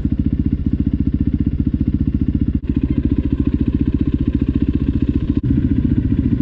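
Dirt bike engine running at low, steady revs with a fast, even beat, briefly cutting out twice.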